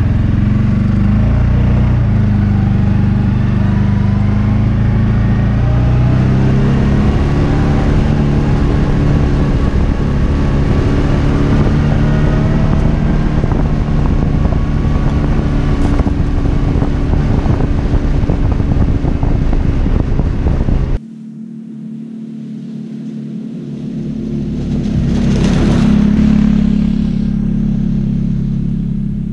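CF Moto UForce 550 side-by-side's single-cylinder engine running under way, heard from on board, its note rising as it speeds up in the first several seconds. About two-thirds of the way through, the sound drops and the same buggy is heard from the ground. Its engine grows louder as it passes, then fades as it drives off.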